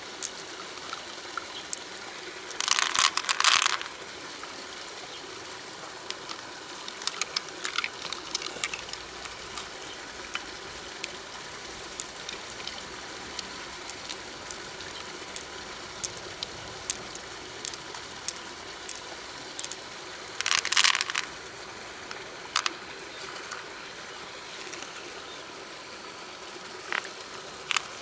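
Steady running river water with scattered sharp clicks, and two short, louder bursts of splashing clatter, about three seconds in and again about twenty-one seconds in.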